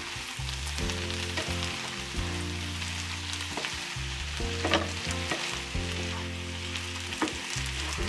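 Sliced vegetables (onion, bell pepper, tomato) sizzling in a frying pan as they are stirred, with a few taps and scrapes of the spatula against the pan. Background music plays underneath.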